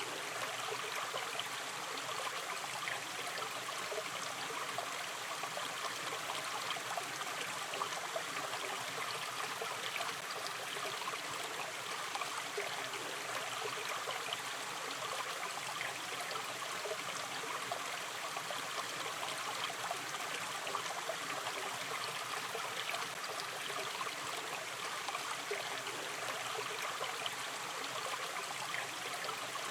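Gentle river stream flowing steadily, with fine trickling and gurgling over a constant rush of water.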